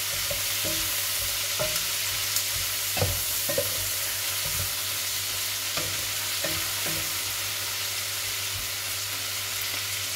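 Pork and vegetables sizzling in a non-stick frying pan while a wooden spatula stirs them, with scattered light knocks and scrapes of the spatula against the pan, the loudest about three seconds in.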